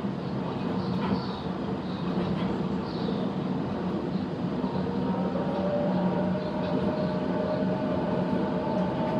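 Electric train running past with a steady rumble and a motor whine that steps up in pitch about five seconds in and then holds.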